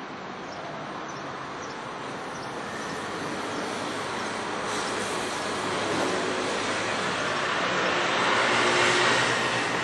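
Electric train approaching on the line, its running noise growing steadily louder.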